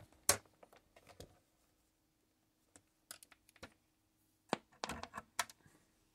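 Scattered light clicks and taps of multimeter test probes against the components and circuit board of a transistor radio, coming singly and in small clusters with pauses between.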